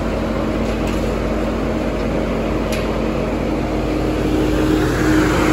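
Volvo Penta TID 530 GE 4.7-litre intercooled diesel generator engine running steadily, a constant drone with a steady hum.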